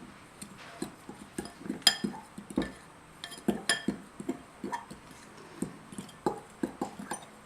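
A spoon knocking and scraping against a large mixing bowl while stirring dry powder, with irregular clinks, a few of which ring out briefly.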